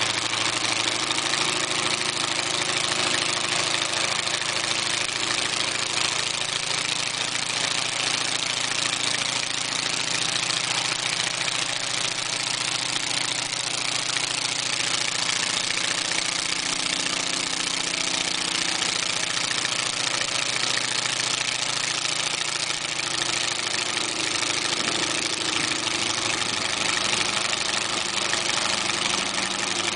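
Salmson radial engine of a replica first Piper Cub running steadily, its propeller turning.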